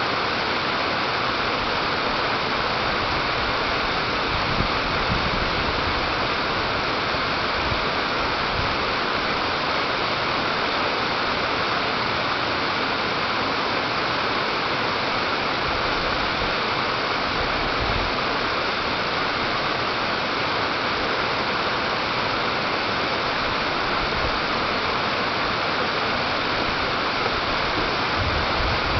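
Rushing water running steadily as an even, unbroken hiss, with a few faint low knocks.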